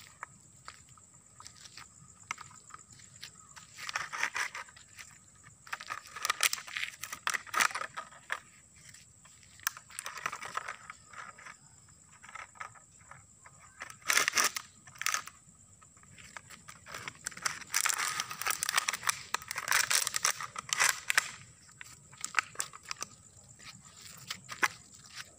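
A dog biting and chewing a plastic bottle: the thin plastic crackles and crunches in irregular bursts of a second or two, with quieter pauses between.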